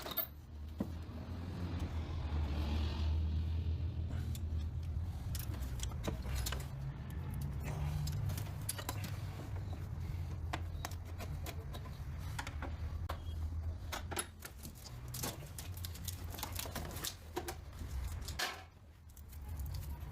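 Scattered metallic clicks and knocks, like hand tools working on metal, over a steady low hum that drops away briefly near the end.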